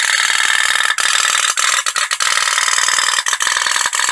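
Tin pop-pop (otok-otok) toy steamboat running, its burner-heated boiler giving a fast, continuous metallic rattling putt-putt.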